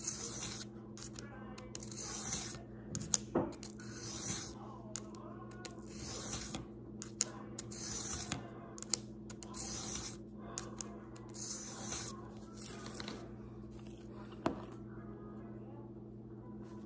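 Broadhead blade stroked by hand across a flat whetstone: a series of short, hissing scrapes about one a second, which stop a little after the middle. A steady low hum runs underneath.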